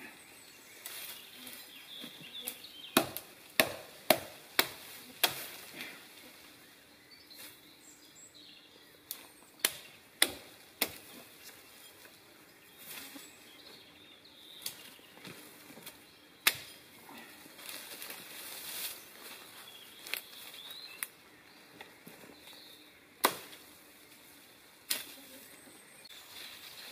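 Sharp chopping strikes into conifer branches, a quick run of five about three seconds in, then single chops spaced a few seconds apart, with the rustle of needled boughs being handled between them.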